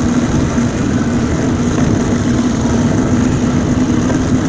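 Steady rush of wind and street traffic from a phone carried on a moving mountain bike, with a motor vehicle's engine humming at a steady pitch.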